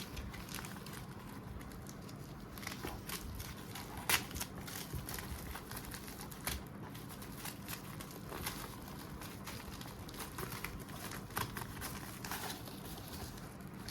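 A small package being unboxed by hand: plastic packaging crinkling and rustling, with scattered sharp clicks and taps. The loudest click comes about four seconds in.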